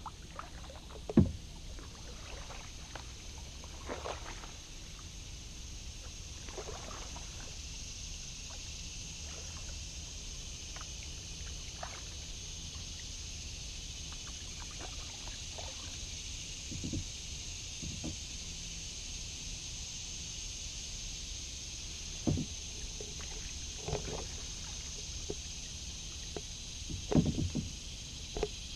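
Kayak paddling: occasional paddle strokes in the water and knocks of the paddle against the plastic hull, with a sharp knock about a second in and a cluster of knocks near the end, over a steady high hiss.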